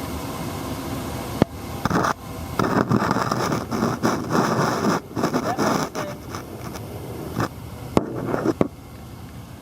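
Steady hiss of an old gas furnace running, broken about a second and a half in by several seconds of loud, irregular scraping and rustling with sharp knocks, twice near the end.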